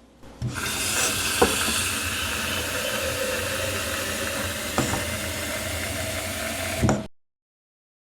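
Steady rush of running water, as from a tap, with a couple of small knocks. It cuts off suddenly about seven seconds in.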